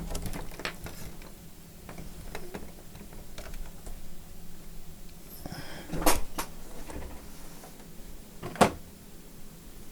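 Scattered clicks and knocks of an HDMI cable being handled and plugged into a laptop on a workbench, with two sharper knocks about six and eight and a half seconds in.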